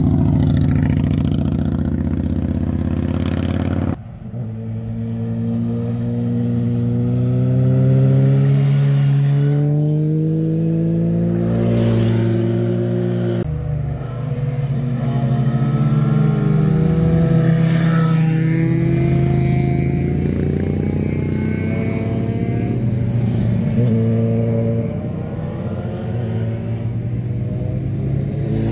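Motorcycle engines running under changing throttle, their pitch rising and falling as they accelerate, shift and back off. The sound breaks off abruptly twice, about four and thirteen seconds in, and a different engine takes over each time.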